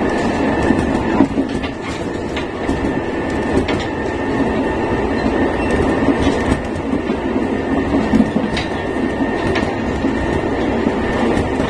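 Nankai 7100 series electric train running at about 110 km/h: its traction motors give a steady high whine over loud wheel and track noise, with scattered sharp clicks of wheels over rail joints.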